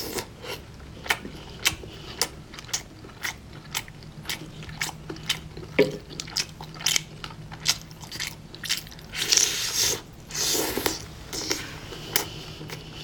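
Close-miked eating: crisp crunching bites about twice a second between quieter chewing, with a longer stretch of dense crunching about nine seconds in.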